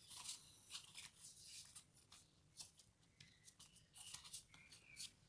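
Faint rustling and light scraping of paper: fingers pressing and smoothing a glued paper die-cut flat onto a cardstock panel.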